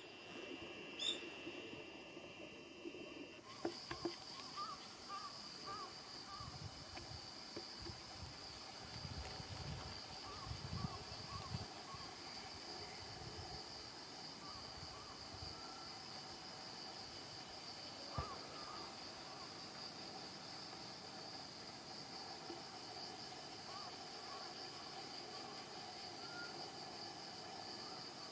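Steady insect chorus, a continuous high-pitched trill, with a few short faint calls and some low rumbling partway through.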